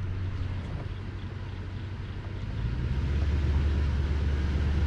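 Pickup truck engine running in a low, steady hum, heard from the driver's seat through an open window. About three seconds in, its note drops a little and grows louder.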